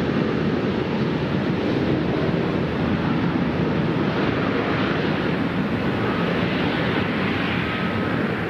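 Jet airliner engines running as the plane moves past: a steady rushing rumble whose higher hiss swells in the second half, with a faint thin whine near the end.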